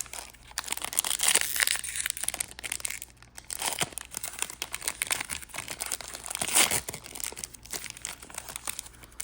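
Plastic foil trading-card booster pack crinkling as it is torn open and handled, a dense run of sharp crackles.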